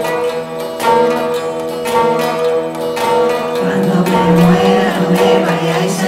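Acoustic guitar strummed in a steady rhythm, one stroke about every second. A singing voice comes in over the guitar about three and a half seconds in.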